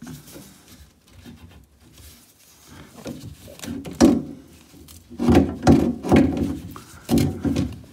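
Old plastic bath trap being unscrewed and pulled away from the bathtub's drain outlet by hand: plastic rubbing and scraping, a sharp click about four seconds in, then louder rubbing and knocking as the trap is worked loose.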